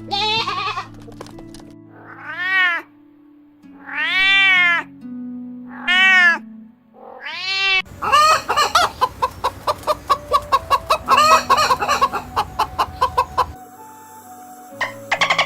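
A cat meowing about five times, each meow rising and falling in pitch, over background music with sustained low notes. About eight seconds in, a quick run of many short calls follows for several seconds.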